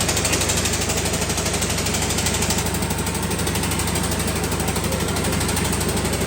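An engine running steadily, with a fast, even chugging beat.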